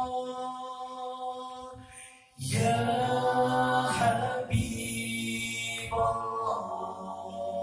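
Male nasyid vocal group singing a cappella in harmony through microphones, heard through a phone's microphone. A held chord fades away about two seconds in, then after a brief gap a louder chord comes in and the voices move through several sustained chords.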